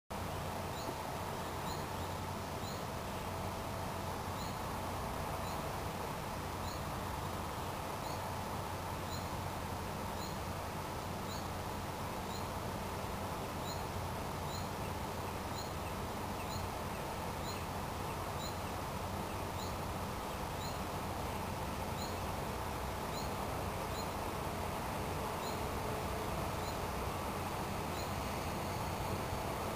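Outdoor trackside ambience: a steady low rumble and hiss that grows slightly louder near the end as a distant electric-hauled freight train approaches, with a short high rising chirp repeated about once a second.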